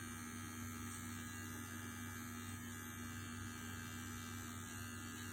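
Steady electrical hum with a faint buzz, unchanging throughout.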